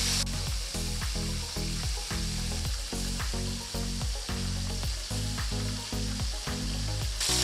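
Background music of repeated notes on a steady beat, over a faint sizzling hiss of chicken frying in oil.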